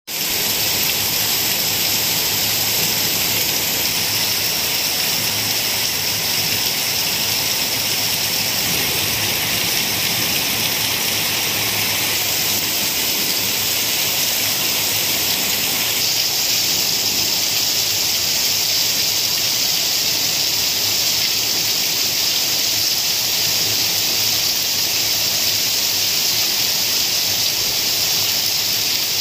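Torrential rain pouring down, a dense, steady hiss.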